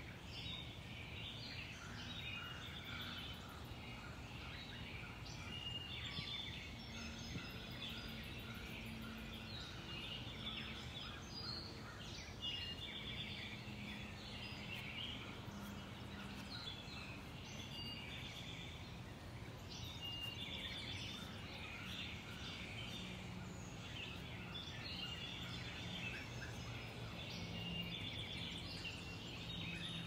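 Small birds chirping again and again in many short calls, over a steady low hum.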